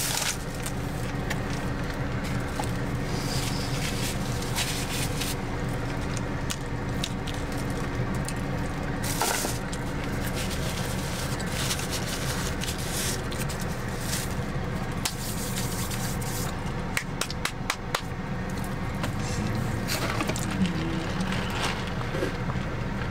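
Eating sounds: chewing, with clicks and crackles from handling a foam takeout container, over a steady low hum in a car cabin. Near the end, sipping a drink through a straw.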